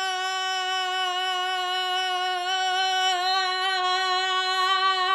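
A woman's voice holding one long sung note at a steady pitch, with a slight wobble partway through.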